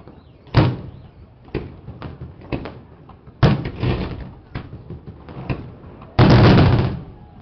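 Fireworks exploding: a run of sharp bangs and pops, loudest about half a second and three and a half seconds in, then a very loud, dense burst lasting nearly a second near the end.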